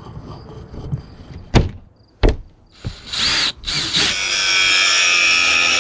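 Power drill running with a steady high whine from about three seconds in, breaking off briefly once, after a couple of sharp knocks.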